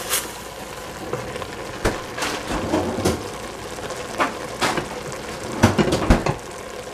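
Vegetables sizzling in a stainless steel pot, with about nine sharp knocks and clatters of a wooden spoon and handling against the pot.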